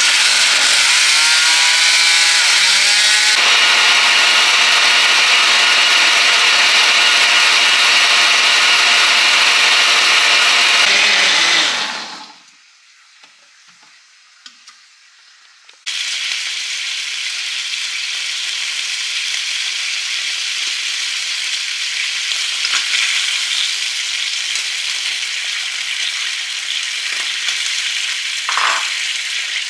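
Countertop blender motor puréeing chopped tomatoes. It spins up in pitch over the first few seconds, runs steadily, and winds down after about twelve seconds. After a short pause, sausage and sliced onions sizzle steadily in a frying pan.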